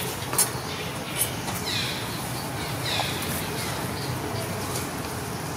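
Steady outdoor background hiss with two short high calls that slide downward in pitch, about two and three seconds in, and a few sharp clicks.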